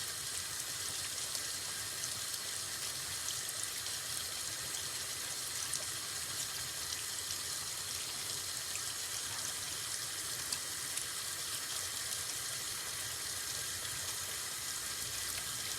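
Steady, even hiss with a fine crackle, like running water.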